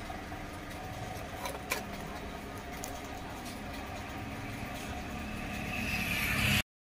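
Steady low background rumble with one light tap a little under two seconds in. A hiss rises near the end, then the sound cuts off abruptly.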